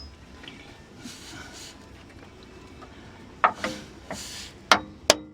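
Quiet background for about three seconds, then a few sharp metallic clinks and knocks, two in quick succession near the end, as the steel parts of a truck's front driveshaft are worked into place.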